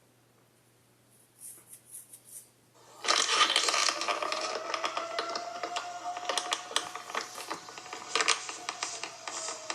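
Tornado siren starting up faintly about three seconds in, its pitch rising and then slowly sinking, under loud crackling and clattering noise that begins at the same moment.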